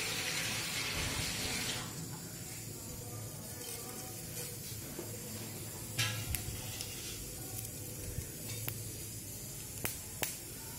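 Hot oil sizzling in a wok with small seeds frying in it: a loud hiss for the first couple of seconds that settles into a quieter steady sizzle, broken by a few sharp pops, the loudest about six seconds in.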